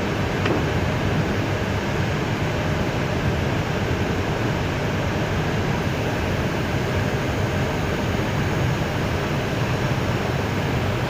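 Steady noise inside an Airbus A320 cockpit while taxiing: engines at idle and the cockpit ventilation, heard as a low rumble under an even hiss.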